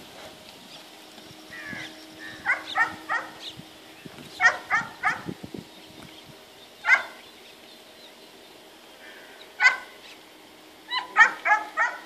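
An animal's short, harsh calls, coming in quick groups of two or three and singly about eight or nine times, over a faint steady hum.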